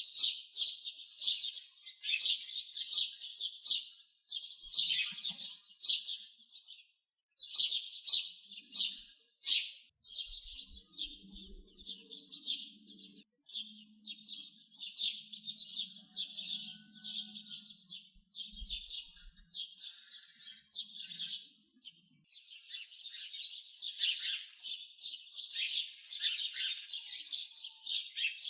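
Small birds chirping in fast, dense runs of short high notes, with a few brief pauses.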